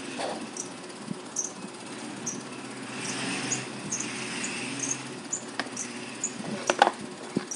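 Paperboard box parts being handled on a cutting mat, with a cluster of sharp taps and knocks about seven seconds in. Short high squeaks recur every half second to a second throughout.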